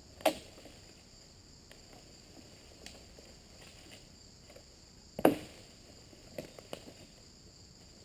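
Steady high-pitched chirring of insects, with two sharp, brief noises, one just after the start and one about five seconds in, and a few soft clicks near the end.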